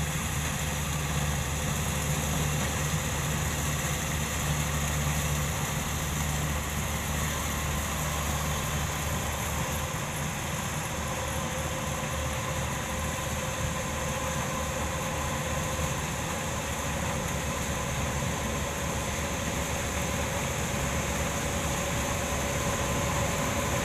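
Corn harvester running steadily as it works through standing corn, a continuous engine-and-machinery drone. A faint steady whine joins in a little under halfway through.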